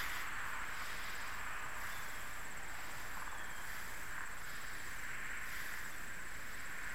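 Steady roadside hiss of distant highway traffic and air, just after a semi-truck has passed.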